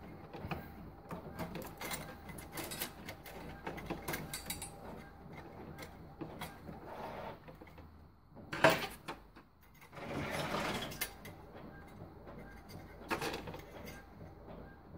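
Clicks, taps and scraping of hands and a screwdriver working at the wiring inside an opened Epson XP-342 inkjet printer, pulling flat spade connectors off its circuit board. A single sharp knock comes about nine seconds in, followed by a longer scrape.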